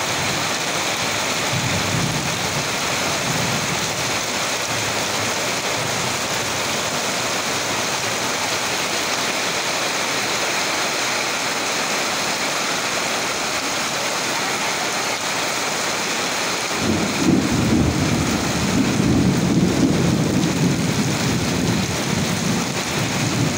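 Heavy rain pouring down, a steady hiss. About two-thirds through, a low rumble of thunder comes in and rolls on to the end.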